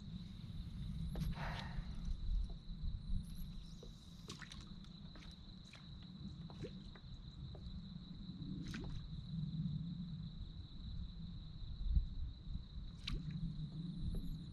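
Faint water sounds around a kayak: small drips and sloshes with scattered light clicks over a low rumble. A thin steady high whine runs underneath, and a few short high chirps come every couple of seconds.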